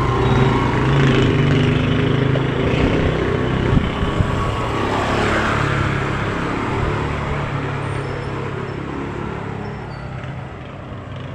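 Motorcycle engine running as it passes close by and rides on ahead, fading gradually over several seconds.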